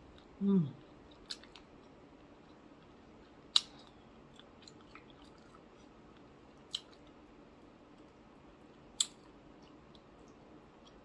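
A person eating with their fingers, close to the microphone: a short falling 'mm' hum about half a second in, then four sharp, wet mouth clicks a couple of seconds apart as she chews.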